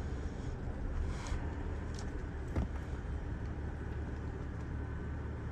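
Steady low rumble of a car running, engine and road noise, with a couple of faint knocks about two and two and a half seconds in.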